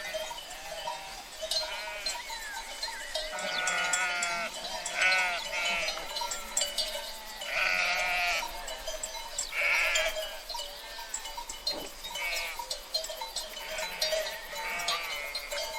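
A flock of sheep bleating, many animals calling over one another, with several loud, wavering bleats through the middle. Bells clink and ring steadily among them.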